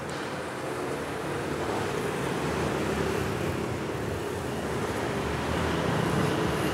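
Steady road-traffic rumble, a continuous noise that swells a little toward the end.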